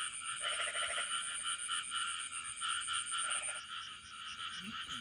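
A chorus of frogs calling, a steady pulsing din of many overlapping calls. A lower, fast rattling call cuts in twice, about half a second in and again after three seconds.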